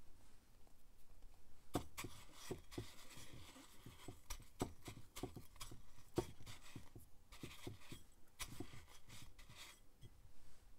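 Black sesame seeds rustling and ticking against a ceramic dish as a ball of bread dough is rolled and pressed in them: faint, scratchy rustling with many small clicks, starting about two seconds in.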